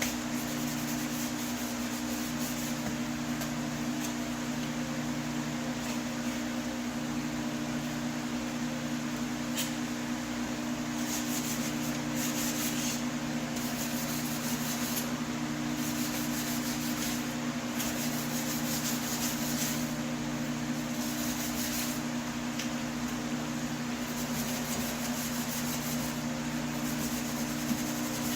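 A steady mechanical hum runs throughout, with repeated bouts of scrubbing, a second or two each, from about a third of the way in, as loosened paint is worked off a metal HVAC register.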